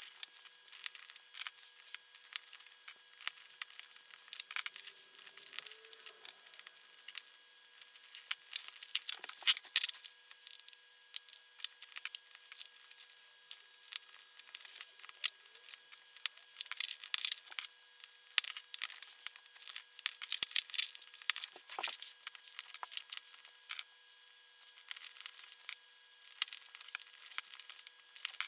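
Tiny plastic micro building bricks clicking as they are handled and pressed together, in irregular runs of small clicks with a few denser clusters.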